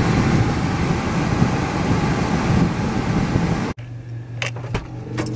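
Steady rush of a car's air-conditioning fan blowing in the cabin. It cuts off abruptly almost four seconds in, leaving a quieter steady hum with a few light clicks.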